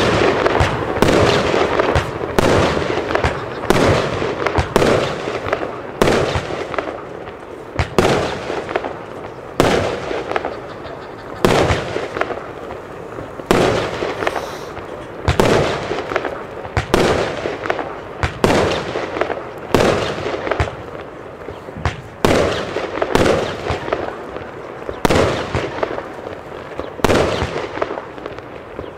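Rubro Fireworks 'Brocade Rain' firework battery firing shot after shot: a sharp bang about once a second, each trailing off before the next.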